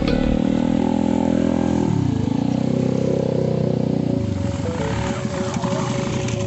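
Small motorcycles riding slowly one after another through mud, their engines running in low gear; the engine pitch dips and rises again about two seconds in as one goes by.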